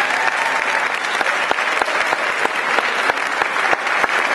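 Audience applauding: many hands clapping in a steady dense patter.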